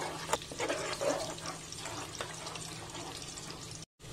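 Watery masala gravy sloshing and bubbling in a pot as a metal slotted spoon stirs it, with a few light clicks of the spoon against the pot. The sound cuts out briefly near the end.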